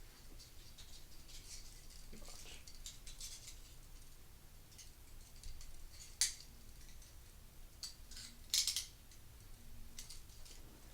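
Steel handcuffs clicking and rattling as they are handled, with a sharp metallic click about six seconds in and a brief louder rattle about two seconds later.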